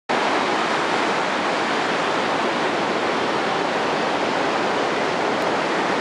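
Ocean surf washing up a sandy beach: a steady, even hiss of foaming water.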